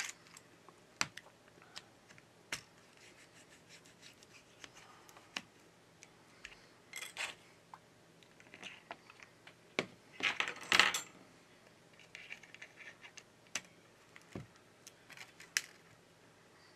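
Small handling noises of phone disassembly: a plastic pry pick scraping and tapping against a smartphone's frame and battery, with scattered light clicks. Short scratchy bursts come about seven seconds and ten to eleven seconds in, the loudest near eleven seconds.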